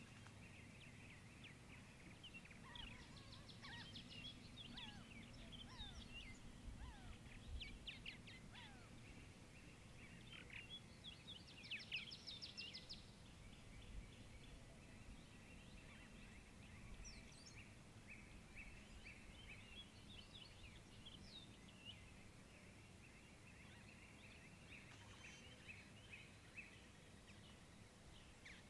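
Faint outdoor ambience of birds chirping and calling at intervals, with quick runs of rapid notes about four seconds in and again about twelve seconds in, over a steady low hum.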